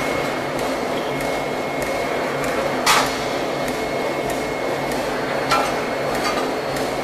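Steady din of forging machinery with faint scattered clicks, broken by one loud metallic bang about three seconds in and a lighter knock a little past halfway.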